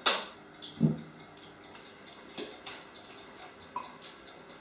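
Kitchen handling sounds: a sharp clatter at the very start, a heavier knock just under a second in, then a few light clicks and taps as a bottle is handled and poured over a cooking pot.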